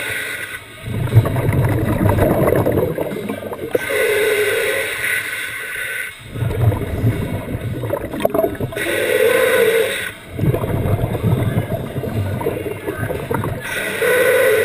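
Scuba diver breathing through a regulator underwater: a hiss on each inhale, then a low bubbling rumble as the exhaled air bubbles out, a breath every five seconds or so.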